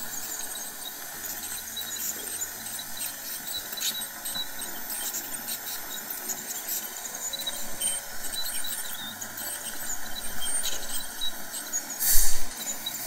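Ultrasonic dental scaler removing stain from the lower front teeth around orthodontic brackets, with a suction tube drawing off the water spray. It makes a steady high hiss full of crackling and slurping, with a louder slurp about twelve seconds in.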